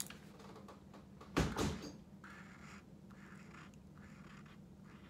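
A knock about one and a half seconds in, then a Posca paint marker scratching on index cardstock in a series of short strokes.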